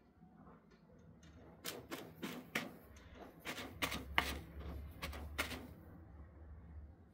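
A kitten's paws scratching and raking granular cat litter to bury its droppings: a quick, uneven run of scrapes starting about a second and a half in and stopping after about five seconds.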